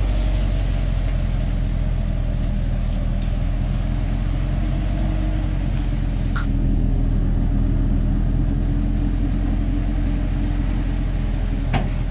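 Steady low drone of a vehicle engine at low, even revs, with a brief sharp click about six seconds in and another near the end.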